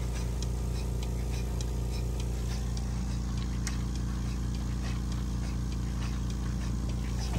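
Electric bucket milking machine running during milking: a steady low hum from its vacuum pump, with faint regular ticking of the pulsator about twice a second.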